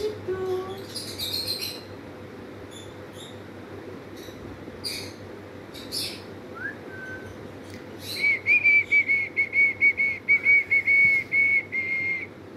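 Congo African grey parrot making a few clicks and short squeaks, then, about eight seconds in, a fast run of short whistled notes all on one high pitch, about five a second, lasting around four seconds.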